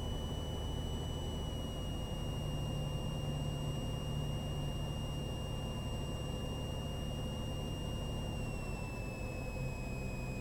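Cessna 182's engine and propeller droning steadily in the cabin during the approach, with a thin high whine over it that steps slightly lower near the end.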